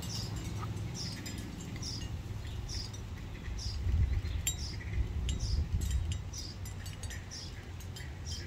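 A small bird calling over and over, a short high falling chirp about once a second, over a low rumble that swells for a few seconds in the middle.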